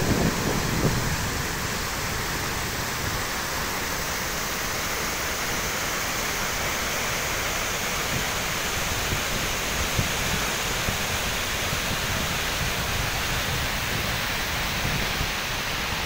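Steady rushing roar of a large waterfall in flood, a heavy volume of water plunging into a gorge, as an even noise with no breaks.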